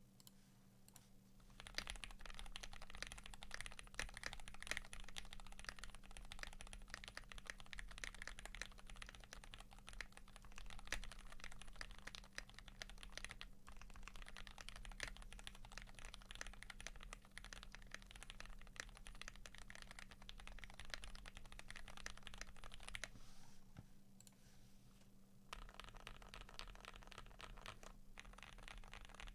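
Steady fast typing on a Tofu65 custom mechanical keyboard with lubed Gateron Pro Yellow linear switches, a brass plate, PBT keycaps and a tape mod. The dense stream of keystrokes starts about two seconds in, stops for about two seconds near the end, then resumes.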